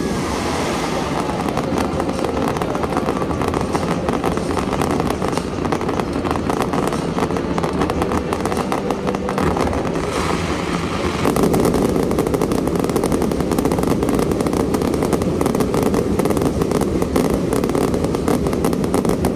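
Fireworks display: a dense, unbroken barrage of rapid crackles and pops from launching comets and bursting shells. It grows louder about eleven seconds in.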